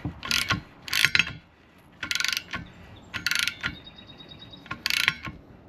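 A 12 mm ratcheting wrench clicking in short bursts about a second apart as it tightens the nut on a TPMS sensor's valve stem.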